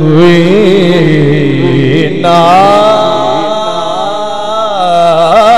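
Male naat reciters singing an Urdu naat into microphones, drawing out the refrain in long, wavering melismatic notes. About two seconds in, the line jumps to a higher register.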